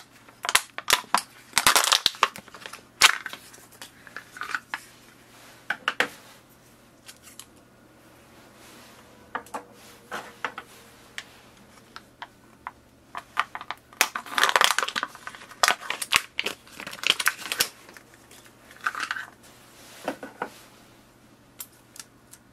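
Clear plastic packaging of inkjet ink cartridges being handled and pulled open: irregular crinkling and crackling with sharp clicks. It comes in bursts, the densest about one to three seconds in and again from about fourteen to eighteen seconds in.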